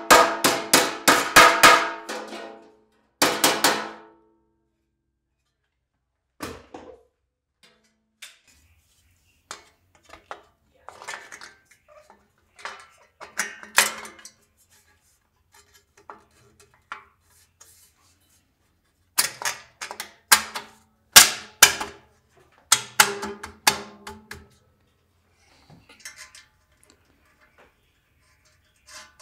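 A mallet striking the motor's sheet-metal fan cover: quick runs of ringing metallic blows in the first few seconds, then scattered light clicks and another burst of ringing metal knocks about two-thirds of the way through as the cover is fitted.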